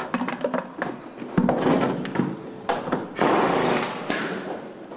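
Pneumatic wheel gun (air impact wrench) rattling in a few short bursts on a racing car's centre-lock wheel nut during a pit-stop wheel change, with sharp metallic clicks in between.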